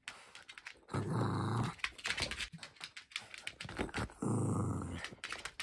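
Small curly-coated dog play-growling twice, each growl about a second long, while it plays with a toy ball; short clicks in between.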